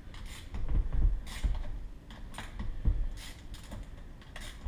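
A small 10 mm wrench loosening the cylinder head bolts on a Honda XR70 engine: irregular metal clicks and taps, with a couple of dull knocks on the workbench.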